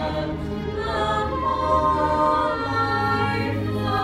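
Several cast members singing together in a musical-theatre number, holding long notes that change pitch every second or so.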